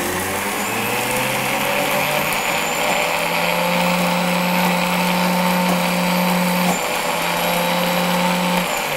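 Optimum 9200 high-speed blender running on a small batch of thick oil, yeast and onion paste. Its motor pitch rises over the first two seconds or so as the speed dial is turned up, then holds steady, and it stops just before the end.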